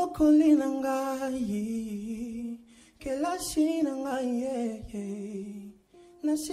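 A young man singing a gospel song solo into a microphone, with long held notes, vibrato and sliding runs, in phrases with short breaths between them.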